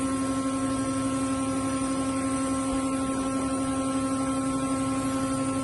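Metal lathe running with its four-jaw chuck turning slowly: a steady hum with a few fixed pitches.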